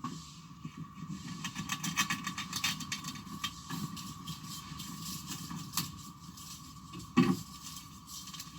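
Hands handling and opening packaging: a run of clicks, crinkles and rustles of plastic and cardboard, with a single louder thump near the end, over a steady faint background hum.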